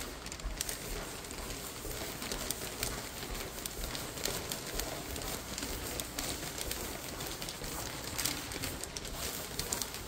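Footsteps on a tiled corridor floor, irregular sharp knocks, over a continuous crackling rustle of something handled close to the phone's microphone.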